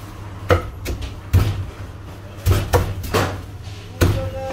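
Meat cleaver chopping roast Peking duck on a thick wooden chopping block: about seven sharp, irregular chops, over a steady low hum.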